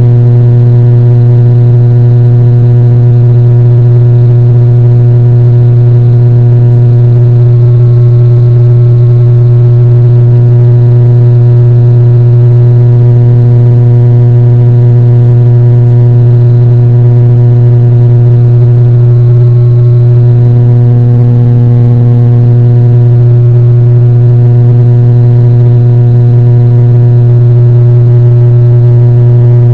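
Turboprop airliner's propellers and engines running at a steady cruise setting: a loud, constant low drone with a strong steady hum.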